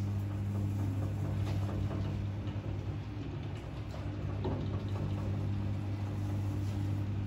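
Steady low electric hum of a running potter's wheel as wet clay is drawn up into a vase, with faint soft wet sounds from the clay under the hands.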